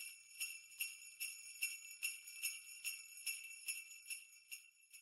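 Jingle bells shaken in a steady rhythm, about two and a half shakes a second, tapering off near the end.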